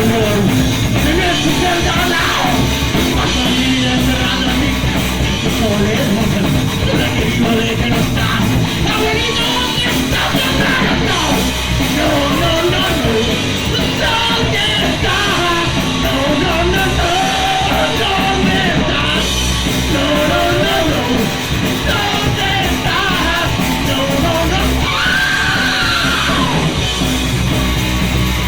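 Punk rock band playing a song live and loud, with a yelled, sung lead vocal over the full band.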